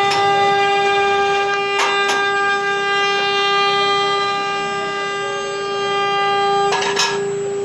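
CNC router spindle running at a steady speed with a constant high whine, broken by a few short sharp clicks, a pair about two seconds in and another pair near the end.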